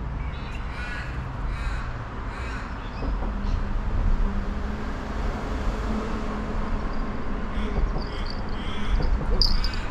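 A crow cawing, about four harsh calls in quick succession in the first three seconds, over a steady low rumble, with fainter high bird chirps near the end.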